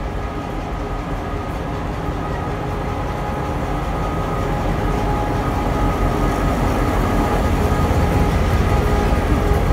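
Diesel freight locomotive passing close by at low speed, its engine running with a steady drone that grows louder as it draws alongside, the low end building near the end.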